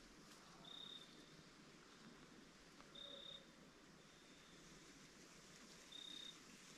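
Near silence with a faint high-pitched tone, each about a third of a second long, repeating every two to three seconds.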